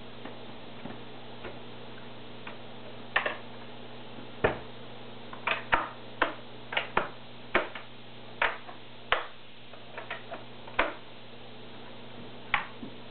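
Irregular sharp clicks and knocks of hard plastic as the lid and fittings of a Via Aqua VA750 canister filter are handled and fitted onto its housing, about fifteen of them, most between about 3 and 11 seconds in, over a steady low hum.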